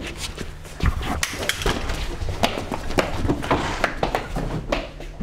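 Irregular knocks, thuds and rustling from things being hurriedly handled and rummaged through, with footsteps.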